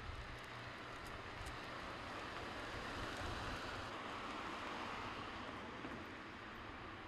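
Wind and traffic on a road during a sandstorm, heard as a steady rushing hiss that swells slightly around the middle.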